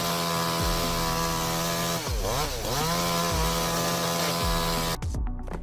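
Chainsaw engine running at high revs, its pitch dropping and climbing back about two seconds in as the throttle is eased and opened again. It cuts off abruptly near the end, giving way to a run of sharp clicks.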